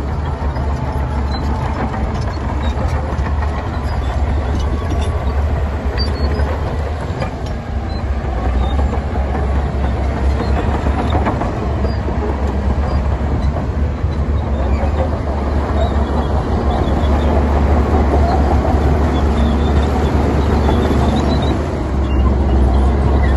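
Heavy diesel earthmoving machinery running steadily, a deep rumbling engine with mechanical clatter, growing a little louder about two-thirds of the way through.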